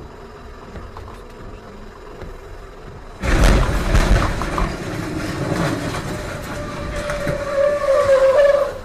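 Road and tyre noise on a wet highway, then a sudden loud crash about three seconds in as a tractor-trailer goes off the road, followed by continued scraping and grinding with a squeal near the end.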